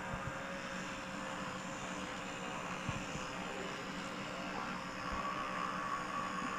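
Steady machine-like hum with a faint held whine, and a few soft knocks.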